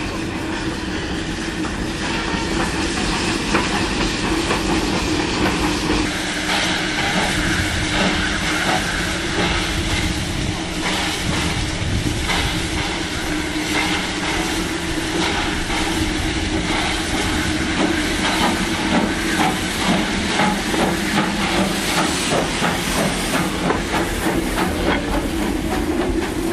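Cuban sugar-mill steam locomotive working along the track: steam hissing, with regular exhaust chuffs from a few seconds in.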